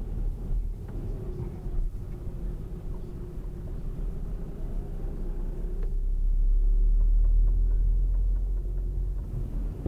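Car running with a steady low rumble and hum, with a few faint knocks here and there; the rumble grows louder for a couple of seconds past the middle.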